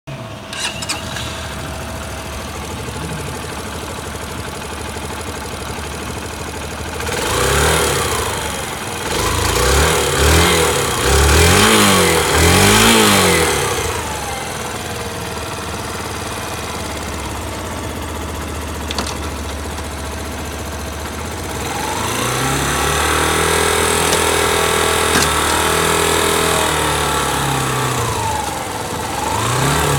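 Yamaha YBR125's single-cylinder four-stroke engine idling, blipped on the throttle in a run of five quick revs, later held at higher revs for several seconds, then blipped once more near the end. The engine has a slight abnormal noise from the cylinder head.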